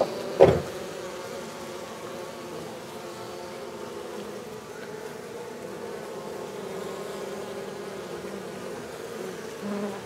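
A dense cluster of honeybees buzzing in a steady, even hum. A single thump sounds about half a second in.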